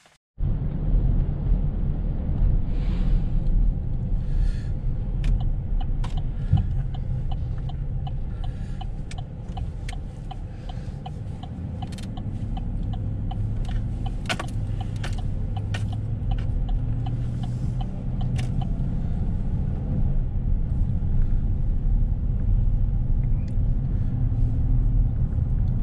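Steady low rumble of engine and road noise inside a vehicle's cab while driving on the highway with a boat trailer in tow, with scattered light clicks and knocks from the ride. The sound starts abruptly just after the beginning.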